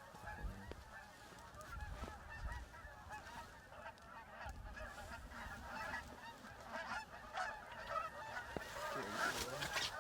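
A flock of Canada geese honking: many short calls overlap in a continuous chorus.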